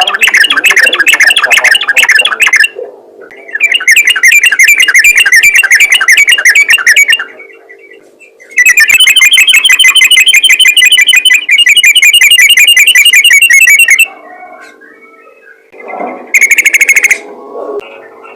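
Yellow-vented bulbul (trucukan) singing in rapid, chattering bursts of fast repeated notes. Four bursts of a few seconds each come with short pauses between them, the longest about halfway through, over a faint steady hum.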